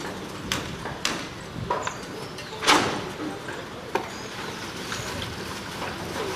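Irregular knocks and bangs of construction work, a handful spaced unevenly over a steady background hum, the loudest about two and a half seconds in.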